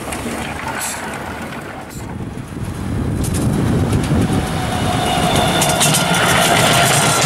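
Ride-on miniature railway train rolling along the track. About three seconds in, a small diesel-outline miniature locomotive is heard approaching; its motor gives a steady whine that grows louder towards the end.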